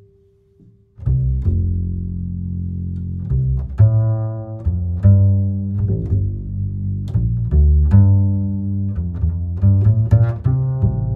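Background music with a strong, low bass line of distinct notes, starting about a second in after a brief near-quiet moment.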